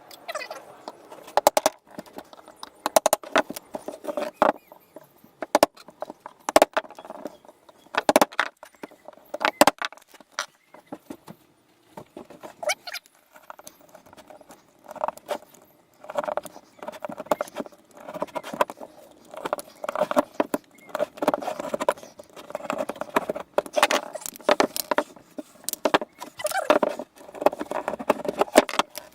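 Cured polyester resin pen blanks being levered out of a glued wooden casting mould with a pry bar: many sharp, irregular knocks and cracks with scraping in between.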